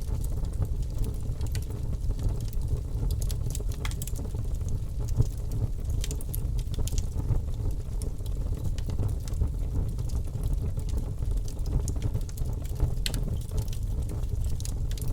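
Bonfire burning: a steady low rumble of flames with irregular sharp crackles and pops from the burning wood.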